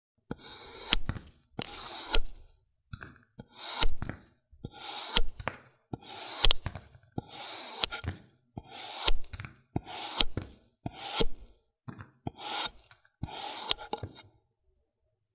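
Red kinetic sand being sliced with a blade: about a dozen scraping cutting strokes, roughly one a second, several with a sharp click.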